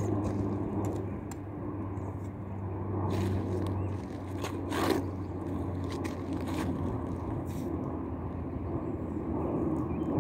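A steady low motor hum, like a distant engine running, that weakens about four seconds in. Over it come a few light clicks and one brief rustle in the middle as arrows are drawn from a hip quiver and nocked on the bow string.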